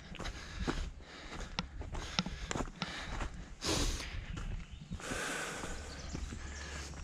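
Hikers' footsteps on a trail, in hiking boots: irregular steps and scuffs, with a short loud rush of noise about halfway through.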